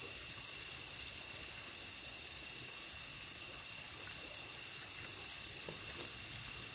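Quiet outdoor night ambience: a steady high-pitched drone, with a few faint crackles from a small campfire about five to six seconds in.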